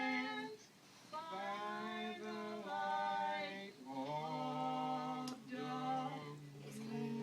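Soundtrack music of an old black-and-white film playing from a television: a series of long held notes, with singing voices.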